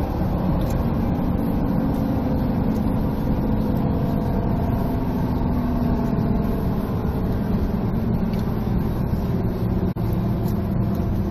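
Steady motor-vehicle and road noise from freeway traffic, with a faint engine hum and a brief dropout about ten seconds in.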